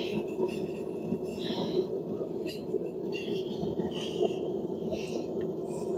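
Propane forge burner running with a steady roar, with scattered light clinks and scrapes of metal tools over it.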